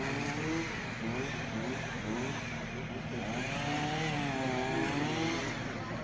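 Chainsaw engine running with its pitch rising and falling as the throttle is worked, between cuts while trimming limbs off a felled pine.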